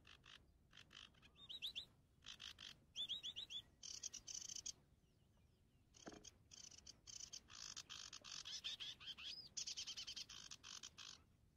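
Small birds chirping in quick trilled bursts with short rising whistles, coming in stretches with brief pauses between them.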